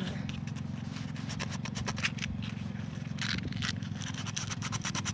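Sanding of a car wheel rim: rapid, rhythmic scraping strokes, with a steady low hum underneath.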